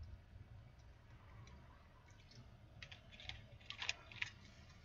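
Faint clicking over a low rumble, with a quick cluster of sharp clicks about three seconds in.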